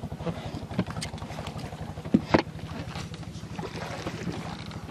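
Small boat engine running steadily with a low, even drone, with a few sharp knocks over it, the loudest about two and a half seconds in.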